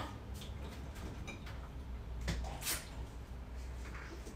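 Refrigerator door pulled open with a single soft sharp sound, about two-thirds of the way in, amid faint handling and shuffling noises.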